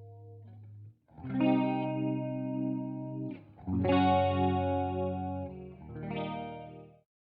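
Electric guitar, a 2011 Gibson Les Paul Gold Top with Celentano pickups, playing three chords that are each struck and left to ring. The last chord fades out shortly before the end.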